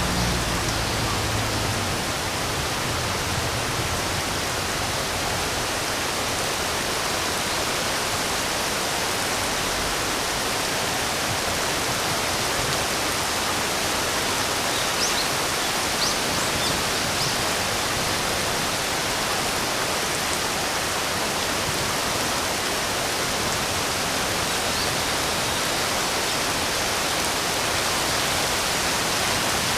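Steady hiss of rain falling. A few faint, high bird chirps come through about halfway.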